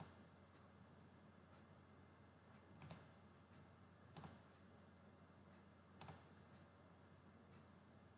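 Near-silent room tone broken by four sharp double clicks, each a quick press-and-release, as of a computer mouse button: one at the start, then about three seconds later, then a second after that, then two seconds later.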